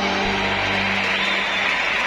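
Music with a guitar, over a steady hiss of crowd noise.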